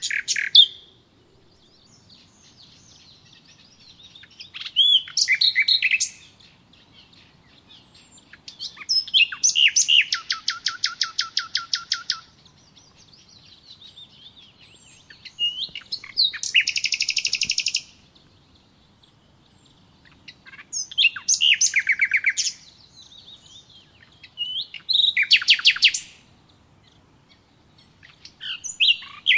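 A songbird singing the same song over and over, about every four seconds: each phrase opens with a few clear whistled notes and runs into a rapid, even trill lasting one to two seconds.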